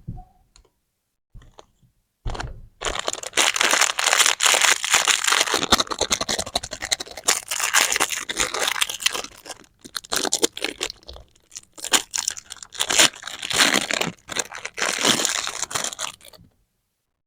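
Plastic candy wrapping being crinkled and torn open by hand: a couple of light taps, then a long stretch of dense crinkling and tearing with a short pause about halfway, stopping a little before the end.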